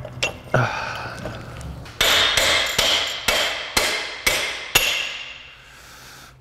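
Hammer blows on a steel C-frame press set over a lower control arm, knocking out the old bushing: two light knocks as the tool is set, then seven sharp ringing metallic strikes about two a second, stopping about five seconds in.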